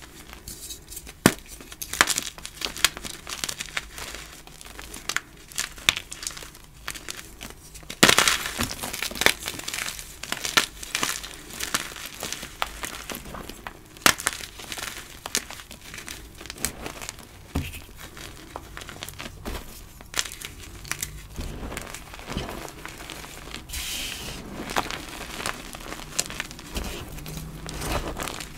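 Gym chalk blocks crushed and crumbled by hand: crisp crunching and crackling with sharp snaps, loudest in a dense burst about 8 seconds in. There is also the softer rustle of fingers pressing through loose powdered chalk.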